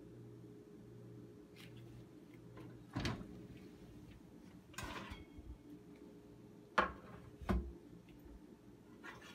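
Oven door opened and metal baking pans pulled off the wire oven rack: a handful of sharp clanks and knocks of pan on rack. The two loudest come close together about three quarters of the way through.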